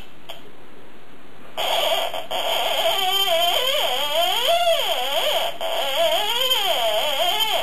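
Electronic warbling tones, several pitches sliding up and down over a steady buzz. The sound switches on abruptly about a second and a half in and cuts off sharply at the end, typical of a small battery-powered sound gadget.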